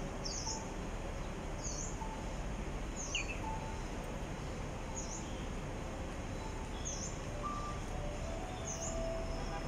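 A small bird calling with a short, high chirp, repeated about six times at intervals of a second and a half to two seconds, over a steady hum of city background noise.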